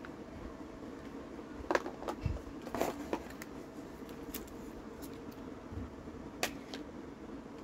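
Cardboard phone box being handled and opened, the phone slid out of its tray: a scatter of short cardboard clicks and scrapes, busiest about two to three seconds in and again near the end, over a steady low hum.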